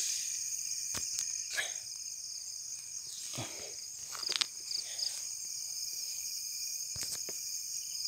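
A chorus of night insects trilling steadily and high-pitched, with a few brief rustles and clicks as bush branches are handled.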